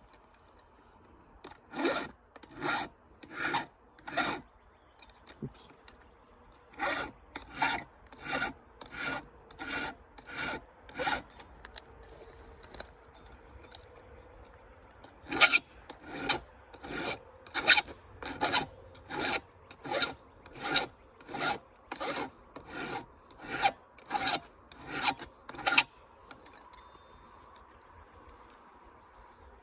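Hand file rasping across the rakers (depth gauges) of a chainsaw chain to lower them, because the factory raker setting was a bit high. The strokes come a little over one a second in three runs with pauses between. A steady high insect trill runs behind.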